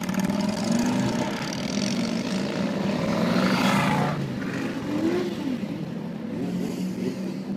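Motorcycle engines running at idle close by, heard from inside a car, with a louder rev that builds for about a second and drops off sharply about four seconds in.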